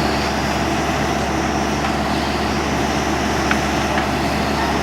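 Tata Hitachi excavator's diesel engine running steadily.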